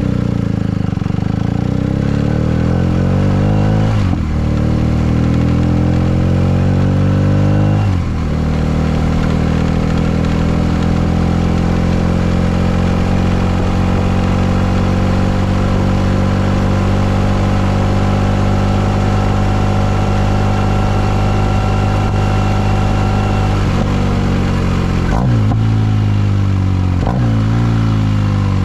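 2023 BMW R1250RS's boxer twin through an open exhaust, slip-on muffler removed and catalytic converter kept. It pulls away with rising revs and upshifts about four and eight seconds in, then holds a steady drone that rises slowly as the bike accelerates gently. Near the end the revs fall and it downshifts twice as the bike slows.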